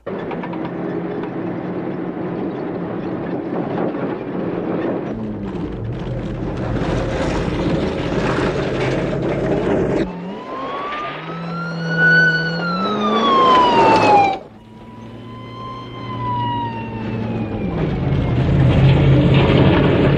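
Army cargo truck's engine running hard, its pitch dropping and climbing a few times as it shifts. About halfway in, a police car siren wails up and down over the engine, cuts off abruptly, then comes back as slower falling wails.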